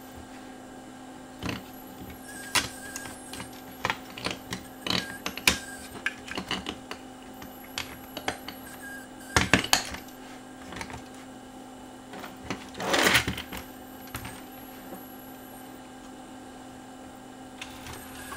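Scattered plastic clicks and knocks from a CD player's loading mechanism and disc-clamp assembly being handled and set back in place, with a brief louder rasp about two-thirds of the way through. A steady low hum runs underneath.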